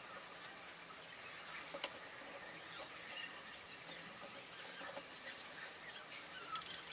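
Faint scratching of a paintbrush spreading finish along a wooden axe handle, with scattered light clicks and a few brief squeaks.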